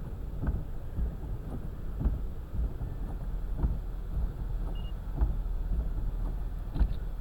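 Low rumble inside a car, with scattered light knocks and thumps.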